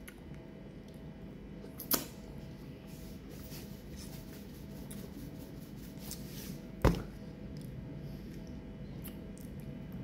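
Two sharp knocks from handling things at close range, a small one about two seconds in and a louder one near seven seconds, over quiet room tone with a faint steady hum.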